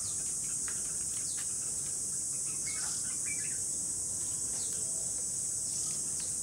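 Steady high-pitched drone of insects, with short falling chirps from red-whiskered bulbuls scattered through it, a small cluster near the middle.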